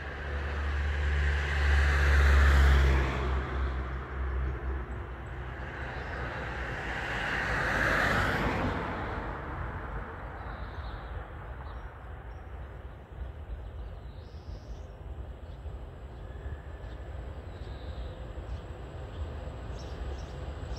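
Outdoor ambience beside a railway line: two loud rushing swells in the first nine seconds, the first the loudest and with a deep rumble. They are followed by a steady, quieter background.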